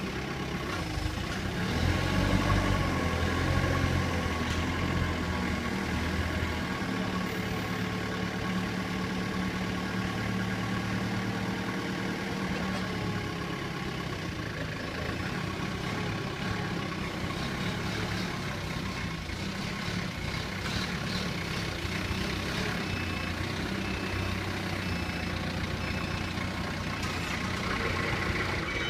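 Diesel engine of an SNSC 3-ton forklift running steadily while the paper roll clamp is worked, getting louder and deeper for a couple of seconds near the start.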